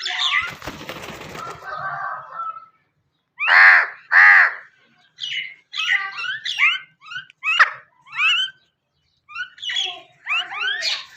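Birds calling. It opens with a rustling flutter, then two loud harsh calls come about three and a half seconds in, followed by a run of short, quick chirps that slide up and down in pitch.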